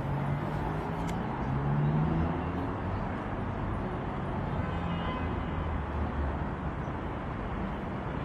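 Outdoor city ambience: a steady hum of road traffic, with a low engine tone rising and a vehicle passing about two seconds in.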